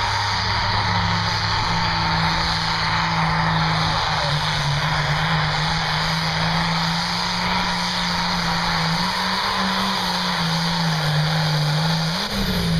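Pulling tractor's engine run hard under load as it drags a weight-transfer sled, a loud, steady drone that wavers slightly. Near the end it briefly rises in pitch, then falls away.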